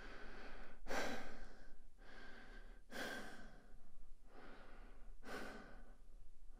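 A person breathing slowly and audibly, about three full breaths: each a softer breath followed by a louder one, roughly two seconds per breath cycle.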